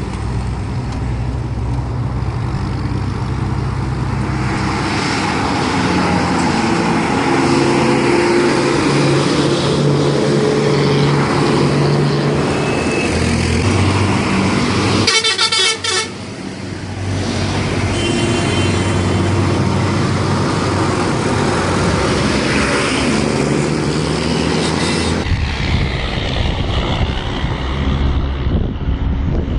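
Hino buses' diesel engines running, with horn blasts partway through, including a quick series of blasts about halfway. The sound changes abruptly near the end.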